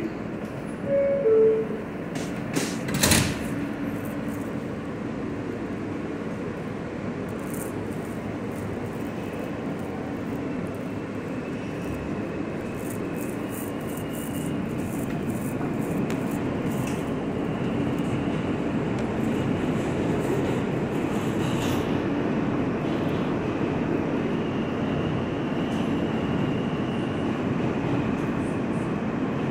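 R160 subway car's two-note door chime, then the doors knock shut about three seconds in. The train then pulls out, its motors and wheels on the rails running steadily and growing louder about halfway through as it picks up speed.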